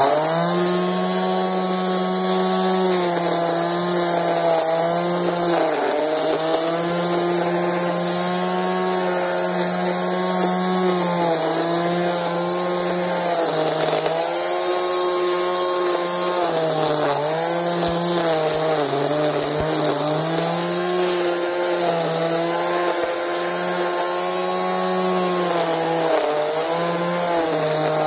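Einhell corded electric string trimmer switching on and running, its nylon line spinning through grass: a loud, steady motor whine whose pitch dips briefly now and then.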